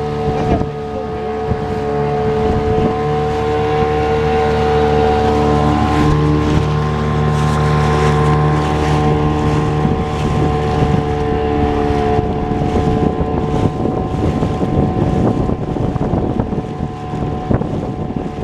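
A small motorboat's engine running steadily under way, with wind and splashing water around the boat in choppy sea.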